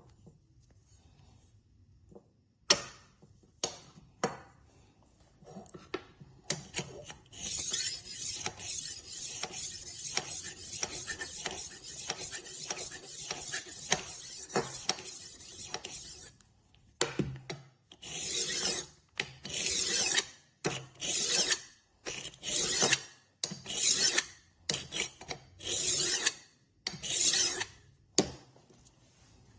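Knife blade scraping against a rolling knife sharpener's abrasive disc. A few clicks come first, then a steady scraping run of about nine seconds, then about ten separate back-and-forth strokes roughly a second apart.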